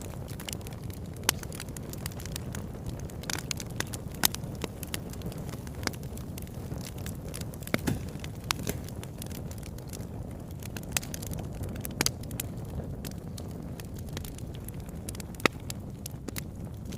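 Wood fire burning in a fireplace: a steady low rush of flame with frequent sharp crackles and pops, a few of them much louder than the rest.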